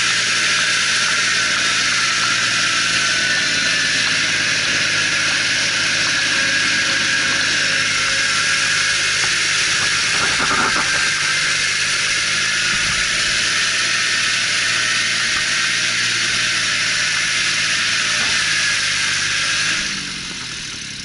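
Kubota 1600 DT compact tractor's diesel engine running steadily under load while ploughing, with a strong high hiss over it. About 20 s in, the engine slows and the level drops.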